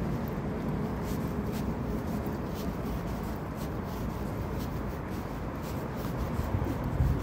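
Electric commuter train running across the elevated steel bridge overhead: a steady low rumble, with faint scratchy clicks scattered through it.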